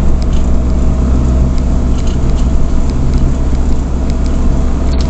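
Motorhome's engine and tyres heard from inside the cab while driving on a wet road: a steady low engine hum under an even hiss of road noise.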